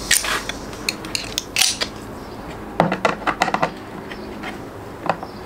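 Irregular clusters of sharp clicks and light metallic clatter: a small Phillips screwdriver working the tiny size-1 screws in the plastic housing of a van's side mirror.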